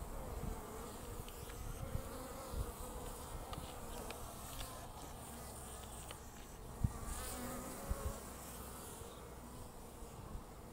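Honeybees buzzing at a hive entrance as they fly in and out, the hum of their wings wavering in pitch as individual bees come and go. A few soft low bumps break in now and then.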